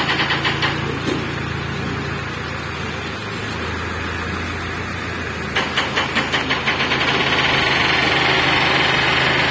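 Crane engine running steadily while hoisting a crate. Its sound swells into a rhythmic pulsing of about six beats a second at the start and again about halfway through.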